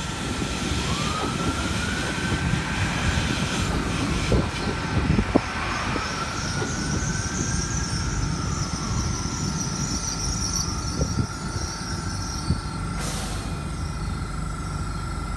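Great Western Railway Class 802 IET, a nine-car Hitachi train, running slowly along the platform. A steady low rumble of wheels on rail is overlaid by a constant high whine and repeated whining tones that glide up and down every couple of seconds.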